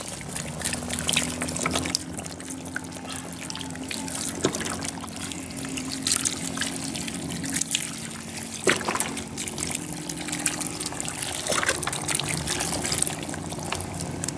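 Beef broth pouring from a carton into a cast iron Dutch oven full of chopped vegetables: a steady trickle with many scattered crackles.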